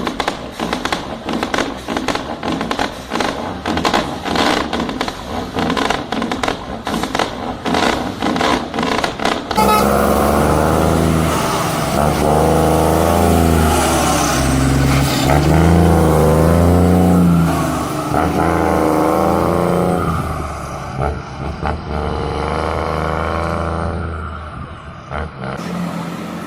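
International diesel trucks passing, first with a rapid, irregular crackle of sharp pops from the engine brake. About ten seconds in, the sound cuts to a louder, deeper engine drone whose pitch rises and falls, then it fades over the last few seconds.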